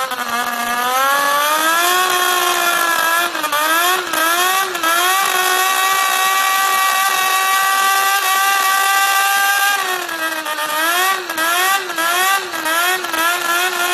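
Small model Wankel rotary engine running, rising in speed over the first couple of seconds and then blipped up and down a few times. It holds a steady high speed for about four seconds, then is revved up and down repeatedly near the end.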